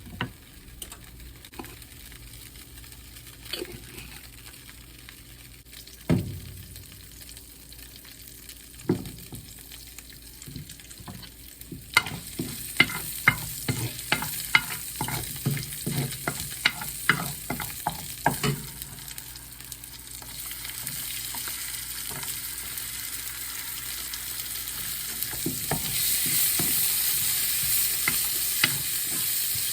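Stir-frying in a pan: a utensil knocks and scrapes against the pan now and then, then in a quick run of strokes about twelve seconds in, while the food sizzles, the sizzle growing louder over the last ten seconds.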